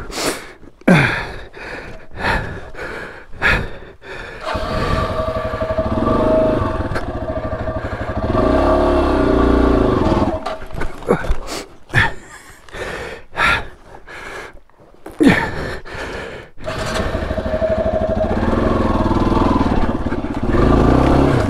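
Yamaha XT250's single-cylinder four-stroke engine working in bursts of throttle over rock ledges, with two long pulls and quieter spells between. Sharp knocks and clatter break in several times.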